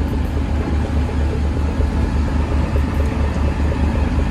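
Fishing boat's engine running, a steady low rumble that pulses evenly several times a second.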